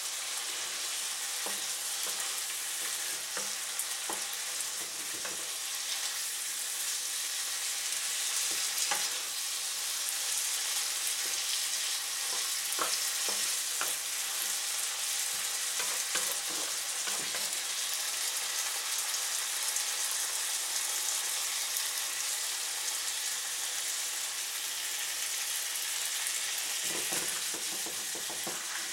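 A stir-fry of onion, red pepper, sun-dried tomato and halved boiled eggs sizzling steadily in a frying pan, with scattered light scrapes and taps of a wooden slotted spatula stirring it gently.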